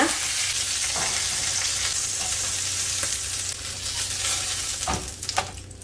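Duck breasts and legs sizzling in their own rendered fat in a pan heated with no added oil. The steady sizzle thins out after about four and a half seconds, with a few light clicks near the end.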